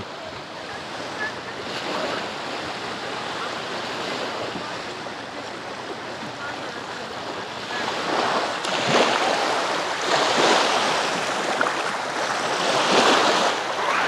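Small Black Sea waves washing onto a sandy shore in the shallows: a steady wash that grows louder in the second half, with several surges of breaking water.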